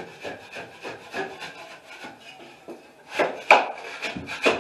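Drywall knife scraping ridges off a coat of joint compound on a ceiling, in short strokes about three a second that get louder about three seconds in.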